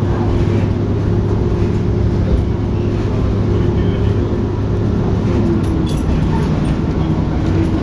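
KiHa 52 diesel railcar's engine running under load as the train pulls away, heard from inside the passenger cabin: a steady low drone whose note steps down slightly a couple of times in the second half.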